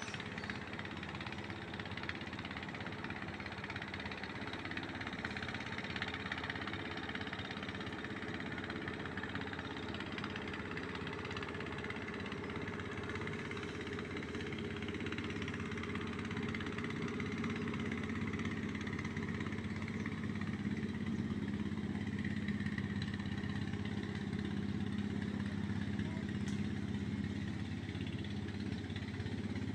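A small engine running steadily, growing slightly louder about halfway through.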